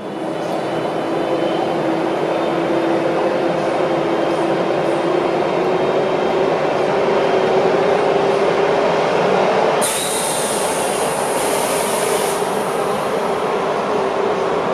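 Czech Railways (České dráhy) electric locomotive passing slowly at the head of a passenger train, with steady running noise and a faint whine that rises a little in pitch. About ten seconds in, a high hiss joins for a couple of seconds.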